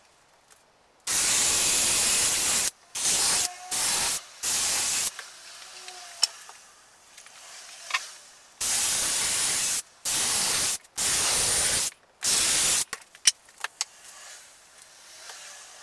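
Cordless drill drilling into pallet-wood boards in short bursts, each starting and stopping abruptly, in two runs of four. Sharp clicks fall in the pauses between.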